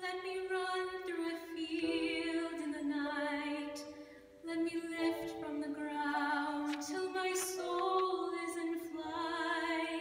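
Two female voices singing a duet in harmony, with vibrato on the held notes, and a short break between phrases about four seconds in.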